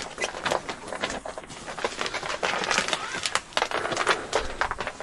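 Footsteps and handling noises: irregular knocks, scuffs and rustles of someone moving about on a wooden floor, with no regular rhythm.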